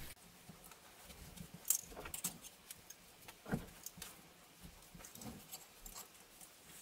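Faint, irregular clicks and rustles of clothes hangers and garments being moved along a wardrobe rail, with a couple of sharper knocks, one about a second and a half in and the loudest about three and a half seconds in.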